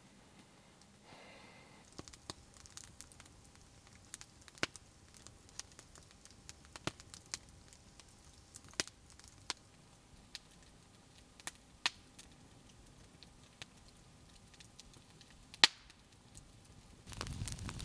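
Wood campfire crackling: scattered sharp pops and cracks over a quiet background, with one louder pop near the end. In the last second the fire sound turns much louder and fuller, a steady crackle and hiss.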